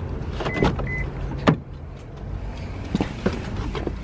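A car's engine running steadily, with clicks and knocks from the door and cabin as someone gets in. Two short high beeps from the car come about half a second and a second in.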